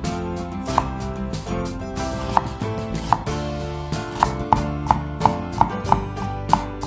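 Chef's knife slicing a sweet green pepper on a wooden cutting board, each cut ending in a sharp knock of the blade on the board: a few spaced cuts at first, then a quicker run of about three a second in the second half.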